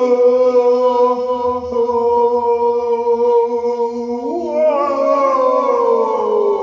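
Electronic keyboard playing a sustained voice-like tone, held at one pitch for about four seconds, then bending up briefly and sliding slowly down in pitch.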